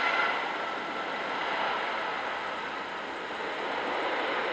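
Twin jet engines of a Boeing 737 airliner during its landing roll just after touchdown: a steady rushing jet noise, with a faint high whine that fades within the first second or so.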